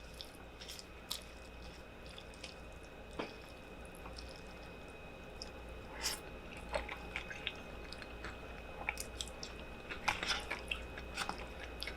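Close-up mouth sounds of a person chewing food: soft scattered clicks and squishes, with a quick run of several clicks about ten seconds in.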